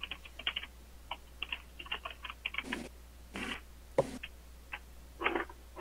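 Computer keyboard typing: quick, irregular runs of key clicks with a few louder strokes.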